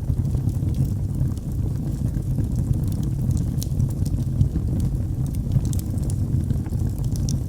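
Wood fire in a fireplace burning, a steady low rumble of flames with many small sharp crackles and pops.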